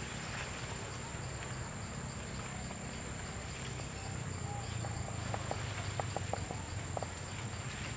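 Outdoor ambience dominated by a steady, high insect drone over a low rumble. About halfway through, a quick run of short clicks comes in for a couple of seconds.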